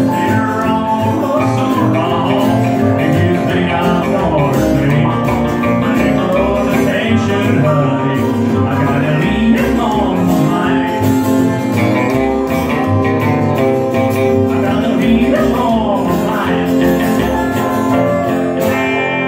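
Live country rockabilly band playing: upright bass, strummed acoustic guitar, electric lead guitar and steel guitar. The song reaches its close, ending on a held chord near the end.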